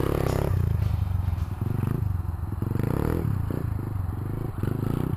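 125cc pit-style dirt bike engine running out of sight, rising and falling in pitch several times as the throttle is worked.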